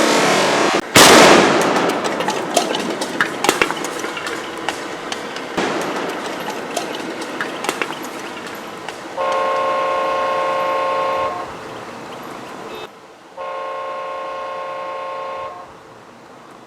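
A loud rushing noise, then a sudden loud explosion about a second in, followed by many sharp crackles and clicks that fade over several seconds. Later a horn sounds two long blasts of about two seconds each.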